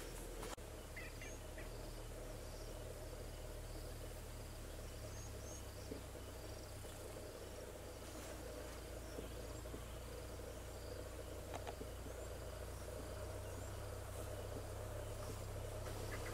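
Bush ambience: small, repeated high chirps of insects and birds over a steady low hum.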